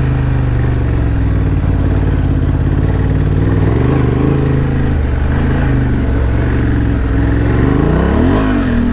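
Honda XL750 Transalp's 755 cc parallel-twin engine running under throttle while riding off road. The engine pitch shifts up and down a few times, with a quick rev that climbs and falls near the end.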